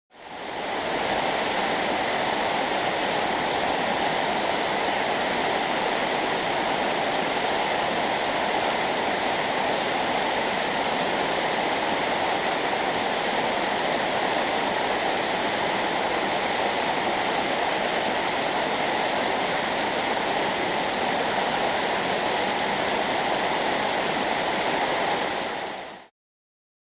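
Waterfall rushing steadily. The sound fades in at the start and cuts off abruptly near the end.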